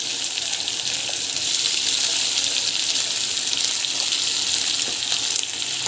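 Sliced shallots frying in hot oil in a kadai: a steady sizzling hiss with faint scattered crackles.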